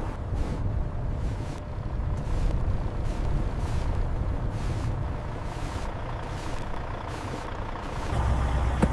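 Peterbilt truck's diesel engine rumbling steadily, with a hiss that swells and drops away in short bursts over it. A sharp click comes at the very end.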